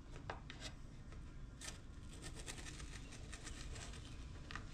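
Faint scattered clicks and light scraping as indoor-outdoor carpet is cut to size.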